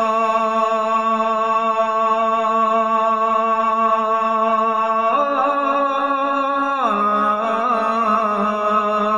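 A male voice sings a long wordless held note in a devotional naat-style manqabat. The note steps up about five seconds in, then slides down near seven seconds to a lower held note.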